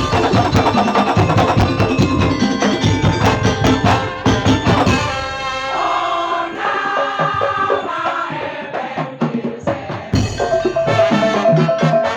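Madurese tong-tong (daul) ensemble playing: dense, rapid beating on bamboo slit drums and drums under a pitched melody. About five seconds in the percussion thins out, leaving mostly the melody, and it comes back in full near the end with a held note over it.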